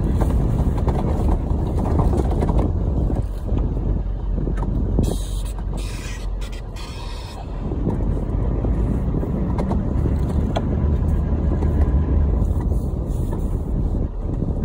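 Toyota Land Cruiser 78 series Troopy driving on a dirt and gravel track, heard from inside the cabin: a steady low engine drone and tyre rumble, with short bursts of hiss about five to seven seconds in.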